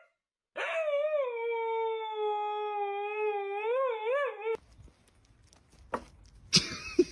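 A dog howling in one long held note that wavers near its end, lasting about four seconds after a brief silence. Quieter knocks and sharp taps follow in the last couple of seconds.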